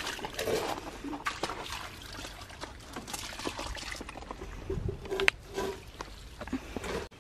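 Water running from a rain-water butt's tap into a metal watering can, trickling and splashing, with a sharp knock a little past five seconds in.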